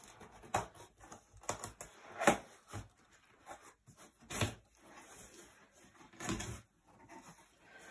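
Cardboard box being opened by hand: irregular taps, scrapes and rustles as the lid and flaps are worked, with a few louder knocks, the loudest about two seconds in.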